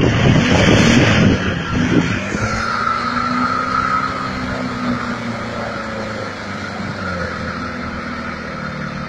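Land Rover 4x4 engine revving hard with a loud rush of noise for the first couple of seconds, then running on more steadily, its pitch rising and falling gently as it slowly fades.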